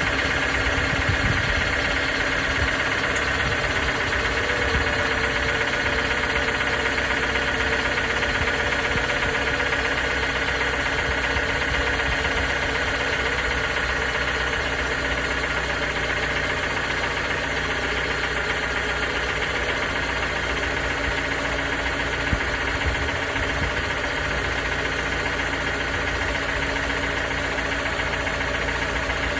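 2019 Toyota RAV4's 2.5-litre four-cylinder engine running steadily with a knocking sound, which the owner presents as engine knock.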